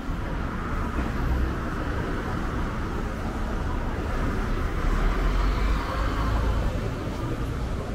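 Street ambience of road traffic going by, a steady hum of cars with a deeper rumble rising about five seconds in as a vehicle passes close.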